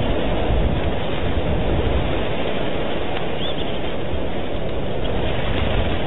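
Wind buffeting an outdoor camera microphone: a steady, rushing rumble that flutters at the bottom without letting up.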